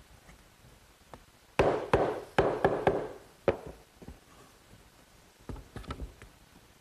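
Wooden boards knocking against each other and the workbench as they are stood up and moved into place. A quick run of several irregular knocks comes about a second and a half in, with a few lighter knocks near the end.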